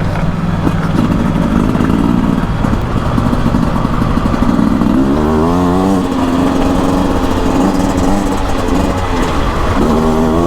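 Beta RR 300 single-cylinder two-stroke enduro engine running under load while riding, its revs climbing sharply about halfway through and again near the end.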